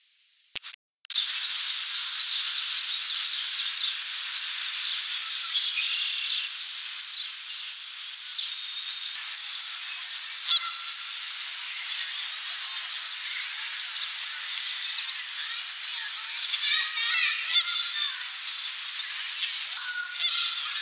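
A dense chorus of wild birds calling and chirping, with many short overlapping high notes and a quicker run of notes near the end. It starts abruptly about a second in.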